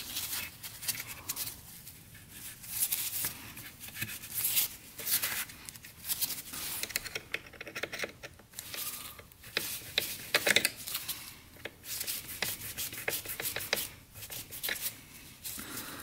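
A worm-drive hose clamp being slipped onto a rubber coolant hose and tightened with a screwdriver, with gloved hands rubbing on the hose. The sound is irregular scraping, rubbing and clicking.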